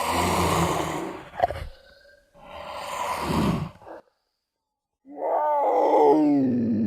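Puma growling: two harsh growls with a short gap between them, then, about five seconds in, a drawn-out call that falls in pitch.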